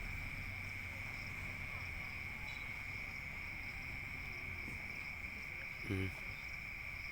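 Insects chirring in a steady, unbroken high drone, with one brief low pitched sound about six seconds in.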